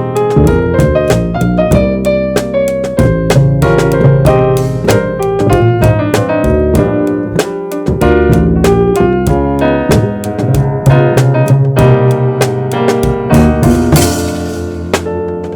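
Jazz trio playing: the keyboard carries a busy run of notes over a walking bass line and drums. A cymbal crash rings out near the end.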